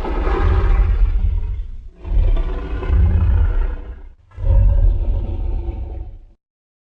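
Custom Godzilla kaiju roar sound effect: a run of monster roars, each about two seconds long, over a heavy deep rumble. The last one cuts off abruptly a little after six seconds in.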